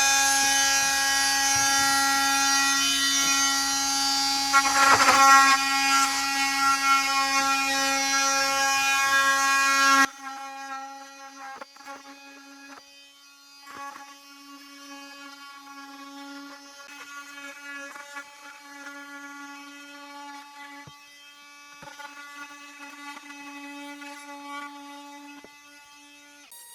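Handheld power saw cutting through a plastic bucket, running with a steady high whine. It is loud for about ten seconds, then drops suddenly to a much quieter but still steady run until near the end.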